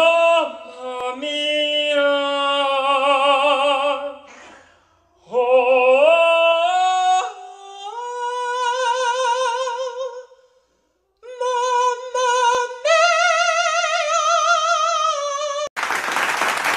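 A man singing long, high notes in an operatic style with strong vibrato, in three phrases that climb in steps. Near the end comes a short, loud burst of noise.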